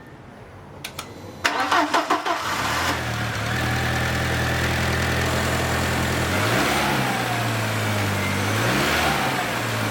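2003 Volkswagen Passat 1.8-litre turbo four-cylinder engine cranked by the starter for about a second, catching and settling into a steady idle, then revved briefly twice. It is running on two new ignition coils that replaced the failed ones behind its misfire. Two light clicks come just before the cranking.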